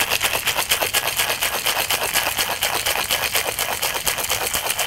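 Ice cubes rattling and knocking inside a Boston shaker being shaken hard, in a fast, even rhythm of clattering strokes.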